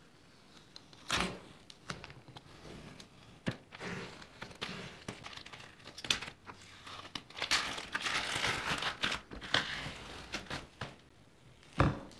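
Masking tape being peeled off a vinyl dash trim panel and crumpled in the hand: irregular crackling and tearing with many small clicks. A single sharp knock comes near the end.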